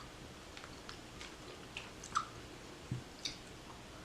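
A person chewing Thrills gum: quiet, irregular wet clicks and smacks of the mouth, with a few louder ones about two and three seconds in.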